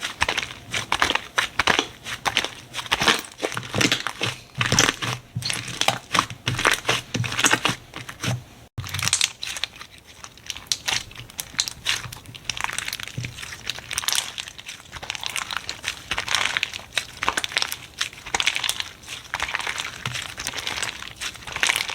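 Slime being squeezed and pressed by hand, giving a dense run of small clicks and pops. The sound breaks off for an instant about nine seconds in, then carries on.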